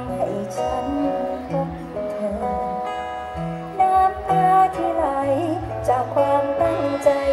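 Live band playing a slow pop ballad, plucked guitar over a bass line, with a woman's voice singing at times.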